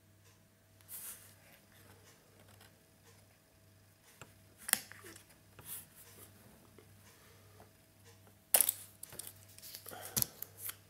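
Hands handling a Sony A58 camera body and peeling the paper sticker off its LCD screen: scattered light rustles and clicks, with the loudest, a short scratchy noise, a little past the middle.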